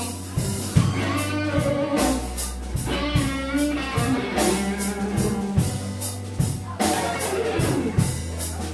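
Live blues band playing a slow blues between vocal lines: electric guitar fills with bent notes over bass guitar, drum kit and keyboards.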